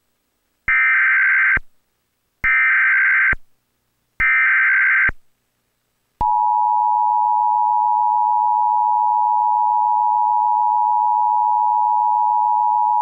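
Emergency Alert System SAME header from a Trilithic EASyPLUS unit: three identical one-second bursts of screeching digital data, about 1.8 s apart. About six seconds in, the steady two-tone EAS attention signal (853 and 960 Hz) begins, marking the start of a child abduction alert.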